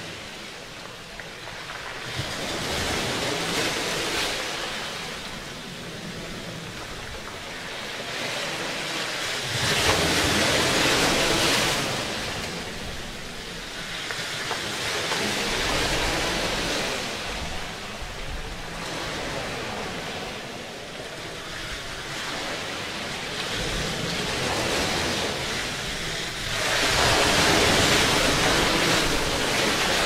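Ocean surf washing over a rocky shore: a rushing sound that swells and fades several times, loudest about ten seconds in and near the end.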